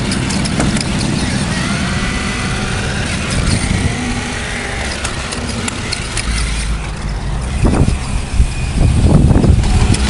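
Small electric motors of a stripped-down toy RC car running as it drives itself over grass, with a faint whine wavering in pitch in the middle. A few knocks and louder thumps come near the end as the car runs against a wooden fence.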